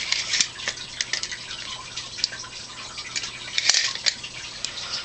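A burning fire patty that has been soaked with water, crackling and sputtering irregularly over a faint hiss as the flame boils the water off. There is a louder cluster of crackles almost four seconds in.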